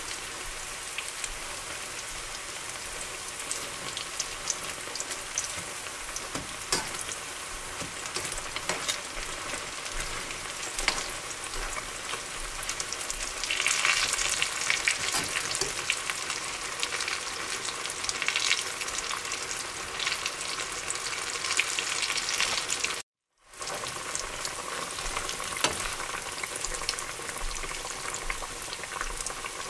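Food deep-frying in hot cooking oil: a steady sizzle with crackling pops, louder for several seconds around the middle. It cuts out for a moment about three quarters of the way through.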